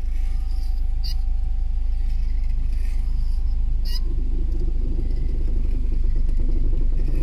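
Proton Iswara's engine idling, heard from inside the cabin, as the steering is turned to the left. About halfway through, a rapid rattling grind joins in from the front suspension. It is the sign of a damaged, jammed bearing in the front shock absorber's top mount. Two sharp clicks come at about one and four seconds in.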